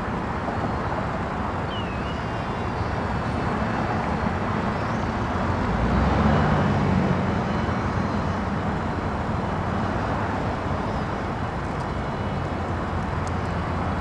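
Goodyear blimp's engines and propellers running steadily at low power while it is held on the ground, with a short swell in power and loudness about six seconds in.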